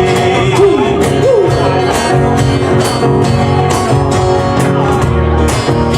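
Live band playing an instrumental break between sung lines, with a steady drum beat under sustained chords.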